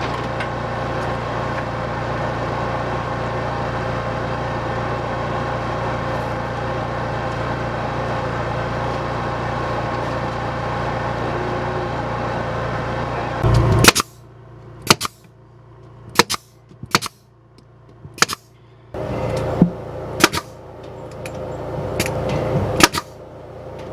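A steady mechanical hum for about the first half, then a staple gun firing staples into wire mesh: about ten sharp shots at irregular intervals.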